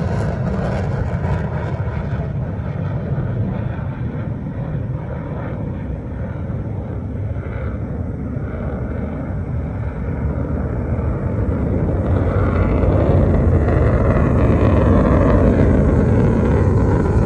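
F-16 fighter jet's engine noise as it climbs away after takeoff: the high hiss fades in the first couple of seconds, leaving a deep rumble that swells louder again in the last few seconds.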